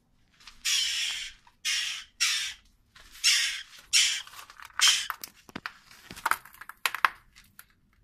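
A western jackdaw nestling giving a series of harsh, breathy calls, about six, each under a second long, followed by a run of short sharp clicks and crackles in the last few seconds.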